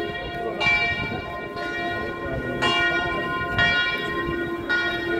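Church bells tolling from the bell tower, four strikes about a second apart at uneven spacing, each ringing on into the next. A large crowd murmurs underneath.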